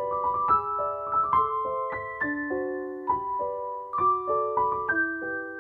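Background music: a piano playing a melody of struck notes that ring on, with several notes sounding together.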